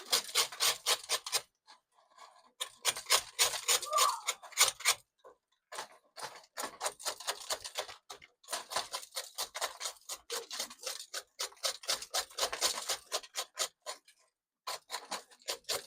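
Rapid strokes of a knife scraping the charred skin off a yellow yam roasted in the coals, about five or six scrapes a second, in runs with short pauses between them.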